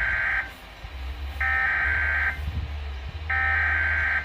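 Weather radio broadcast sending three buzzy bursts of SAME digital data tones, each about a second long with about a second between them, over a steady low hum. This is the coded header that opens a weather alert, just before the alert tone.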